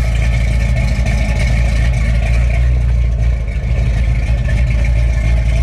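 1969 Dodge Super Bee's 440 V8 idling steadily, heard from behind the car at the exhaust.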